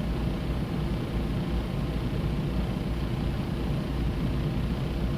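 Semi truck's diesel engine idling, a steady low rumble with a faint constant hum.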